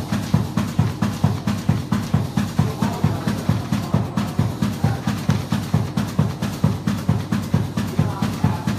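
Knife-type paper pleating machine running at speed, its pleating blades thumping in a steady rhythm of about three strokes a second, each with a sharp click.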